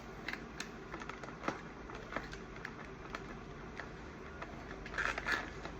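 Scattered light clicks and taps of hands handling small plastic action figures and their packaging, with a quick cluster of louder clicks near the end.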